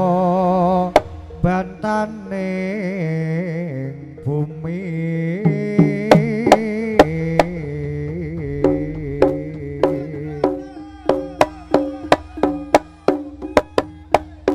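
Live Javanese jaranan (kucingan) dance music: a wavering melodic line over sharp hand-drum strokes, which settle into a steady beat of about two a second near the end.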